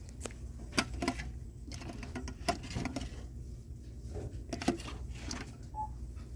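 Store ambience: a steady low hum with scattered light clicks and knocks, like merchandise or a cart being handled.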